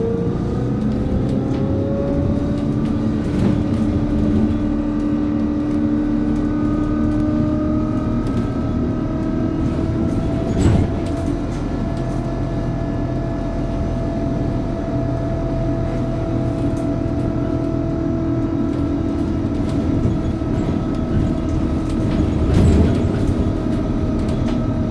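Hess Swisstrolley 3 articulated trolleybus's electric traction drive whining under way, heard from inside the bus. The whine rises in pitch during the first few seconds and then holds nearly steady over road rumble, with a couple of short knocks.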